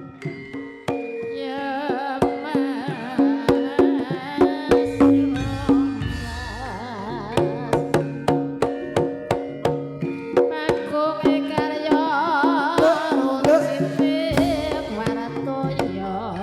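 Campursari music: a hand drum beats a steady rhythm of sharp strokes under a melody line that wavers with strong vibrato.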